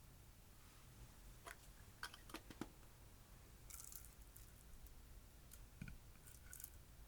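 Faint sticky clicks and squishes of clear slime being worked by hand, scattered a few at a time with short pauses between.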